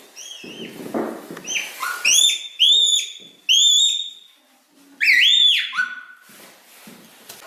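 Himalayan red panda giving a run of short, high-pitched squeaking chirps, each rising and falling in pitch, with a breathy huff about a second in and a pause of about a second past the middle.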